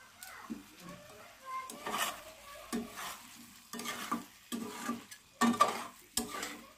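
Metal spatula stirring and scraping chicken curry with tomatoes around a metal kadhai in a series of irregular strokes, the loudest near the end, over the sizzle of the cooking curry.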